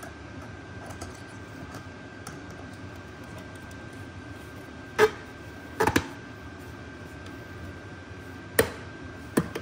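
A handful of sharp metallic clicks and knocks, starting about halfway through, from steel aircraft cable and hand tools being worked against a van seat's steel frame as the cable is pulled tight. A faint steady high tone runs underneath.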